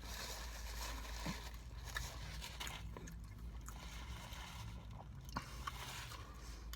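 A person chewing and biting into a crispy fried chicken sandwich, with scattered small crunches and clicks over a steady low hum.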